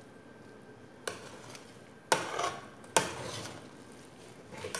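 A metal spoon stirring and tossing noodles in a large aluminium pot, knocking against the pot four times about a second apart, the first about a second in, each knock followed by a short scrape and rustle of the noodles.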